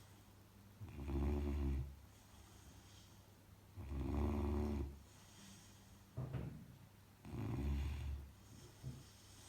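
Saint Bernard puppy snoring: three loud snores, each about a second long and roughly three and a half seconds apart, with fainter breathy sounds between them.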